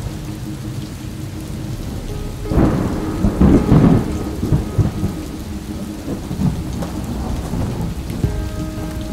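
Thunder rumbling over steady rain: a thunderclap about two and a half seconds in, loudest for a second or so, then trailing off into scattered low rumbles.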